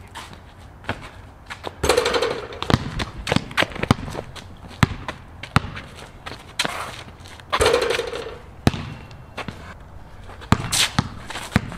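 Basketball dribbled on a concrete slab: a series of sharp, unevenly spaced bounces. Two longer noisy bursts come about two seconds in and again about eight seconds in.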